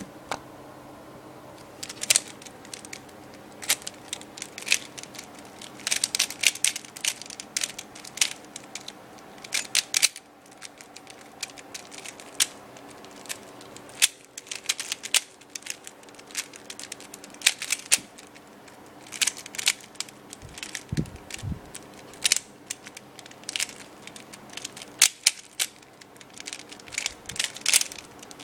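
Rubik's Cube being turned one-handed at speed: quick, irregular plastic clicks and clacks as the layers snap round, in clusters with short pauses between them.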